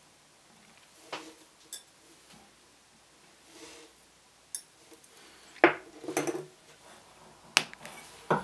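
Light metallic clicks and clinks of small silver earring pieces and a metal hand tool being handled and set down on a soldering brick. A few scattered taps come first, with louder clinks in the second half.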